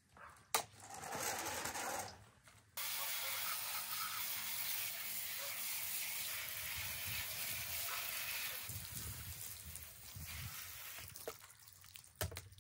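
Garden hose spraying water onto a plastic car grille: a short spurt about half a second in, then a steady hiss that starts suddenly about three seconds in and tails off after about nine seconds.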